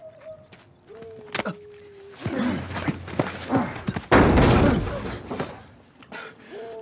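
A fight scene's blows: scuffling hits and then a heavy thump about four seconds in as a man is slammed against the front of a Cadillac.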